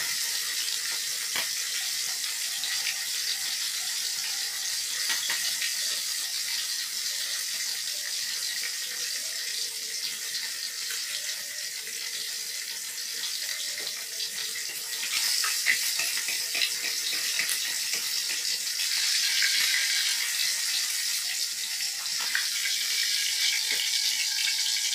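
Whole fish deep-frying in hot oil in a wok: a steady sizzle with scattered crackles, a little louder in the last third.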